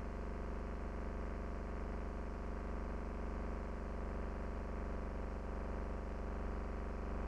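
A steady, unchanging low hum with several even overtones. It does not vary in pitch or level.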